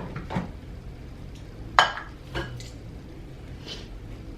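Groceries being handled and set down on pantry shelves: a few short knocks and clinks, the loudest a little under two seconds in.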